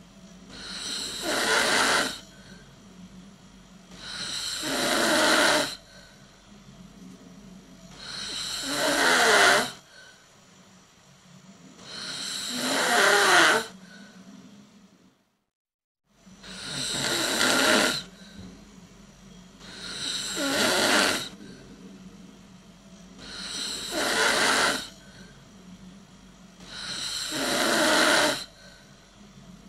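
A person snoring loudly: eight snores, about one every four seconds, each swelling to a peak and then breaking off sharply, with quieter breaths between. The sound cuts out entirely for about a second midway, then the snoring resumes.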